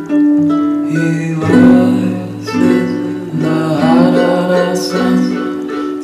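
Background music led by plucked guitar.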